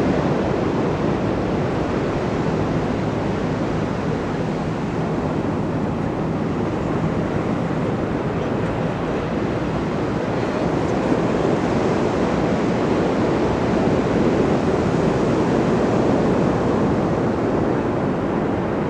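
Ocean surf rushing onto a beach in a steady wash of noise that eases and swells again without a break.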